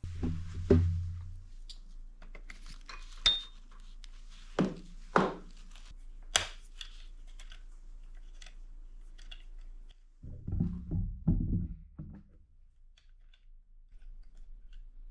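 Scattered knocks and clinks of tools and small bike parts being handled at a workbench: about five sharp taps in the first seven seconds, then a short cluster of duller thuds around ten to twelve seconds in.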